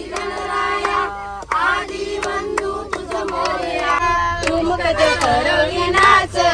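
Several people singing a song together, with held, wavering notes over a low rumble that strengthens about four seconds in.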